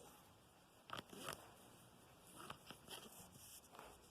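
Near silence with a few faint, scattered clicks and rustles of a phone charger cable being untangled by hand.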